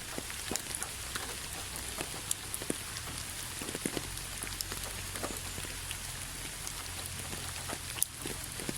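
Steady rain with scattered close drops tapping and splashing, individual drip clicks standing out over a continuous hiss; one sharper drop about 8 seconds in.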